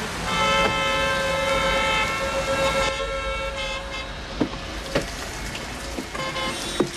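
A car horn held for about three seconds, fading at the end, followed by a few sharp clicks.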